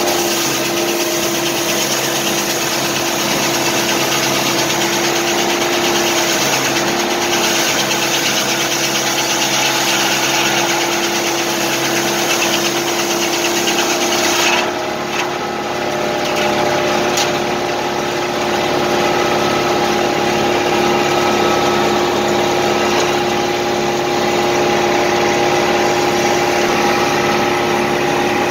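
Tractor engine running steadily with a large circular sawmill blade spinning. For the first half the blade is sawing through a log, a dense hiss over the running sound that cuts off about halfway, leaving the engine and the free-spinning blade.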